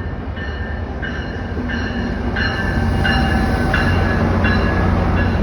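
Passenger train moving through the station: a steady low rail rumble that grows louder, with short high metallic squeals that keep coming and going.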